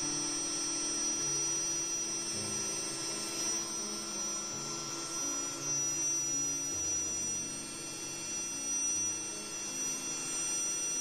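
Small electric blower running steadily with a thin high whine over a low hum. It blows air across a PVC T-fitting, and the Venturi effect sucks air up the pipe.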